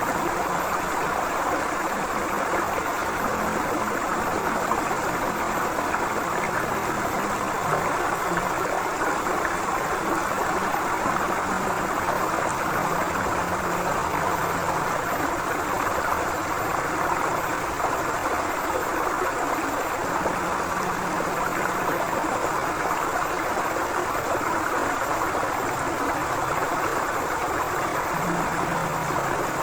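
River water flowing and rushing over stones in a steady, unbroken churn.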